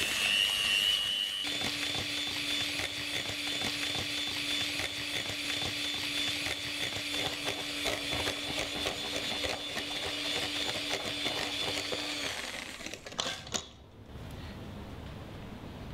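Electric hand mixer running at a steady speed with a high whine, its beaters whisking egg yolks, sugar and mascarpone in a stainless steel bowl. It stops about twelve seconds in, followed by a couple of clicks.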